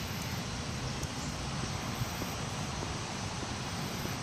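Steady outdoor background noise: a low rumble with an even hiss over it.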